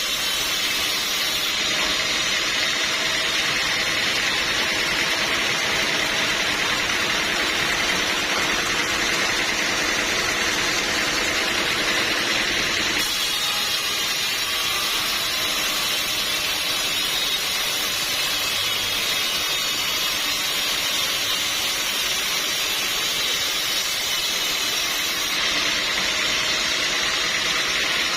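Sawmill machinery running steadily, a continuous mechanical drone and hiss from the mill's saw and motor, with abrupt shifts in tone about 13 and 25 seconds in.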